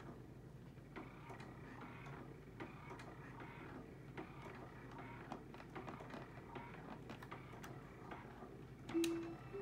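Fisher-Price cradle 'n swing running, a faint steady motor hum with light irregular clicking as its control buttons are pressed. Near the end a short electronic tone sounds, then a second, slightly higher one.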